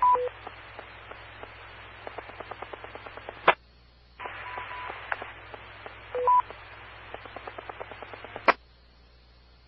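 Linked UHF amateur radio repeater between transmissions. A short two-note courtesy beep sounds, then open-carrier hiss with faint clicking, which cuts off sharply with a squelch tail about three and a half seconds in. The repeater is keyed again with more hiss, a brief steady beep and another two-note courtesy beep, and drops out with a squelch click about eight and a half seconds in.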